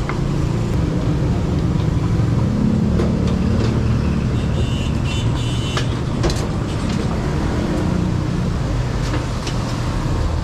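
Steady road traffic noise, with vehicle engines running close by. A brief high-pitched tone sounds about halfway through.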